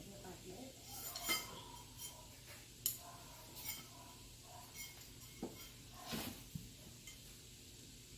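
Light metallic clinks and taps of white shelf tubes and wire-mesh panels being handled during assembly, scattered irregularly about once a second.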